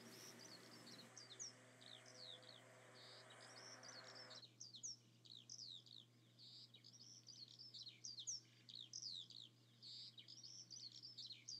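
Faint birdsong: many quick high chirps, most sweeping downward in pitch, from several small birds, over a low steady hum.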